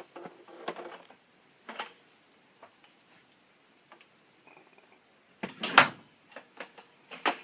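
Scattered knocks and clicks of gear being handled, with a louder, brief clatter about five and a half seconds in; the air compressor is not running.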